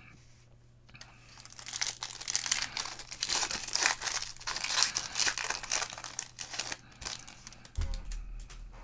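Foil wrapper of a football trading-card pack being torn open and crinkled by hand: a dense, crackling rustle for about five seconds, dying away near the end.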